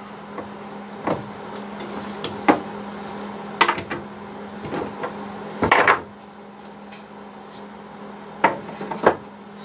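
Bar clamps being loosened and taken off a freshly glued wooden clock case frame: about six separate knocks and clunks of metal clamp parts and wood against the workbench, loudest about six seconds in, over a steady low hum.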